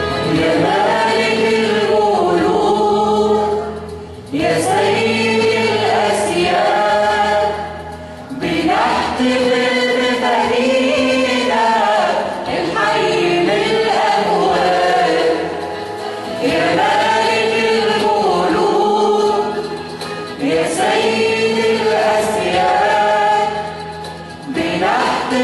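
Church choir singing an Arabic Christian hymn in sung phrases of about four seconds each, with brief dips between phrases.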